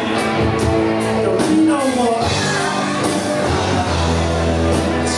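Live rock band playing loud and steady, with electric guitars, keyboards and drums under a lead singer's vocal.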